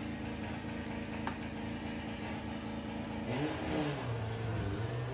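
Two drag-racing cars, a VW Beetle and a dark saloon, held at steady revs on the start line. About three seconds in they launch, and the engine notes climb and shift as they pull away.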